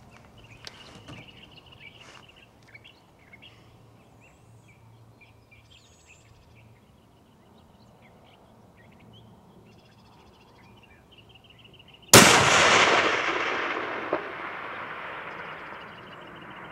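A single shot from a custom 7mm Winchester Short Magnum rifle about 12 seconds in: a sharp, loud report that echoes and fades away over two to three seconds.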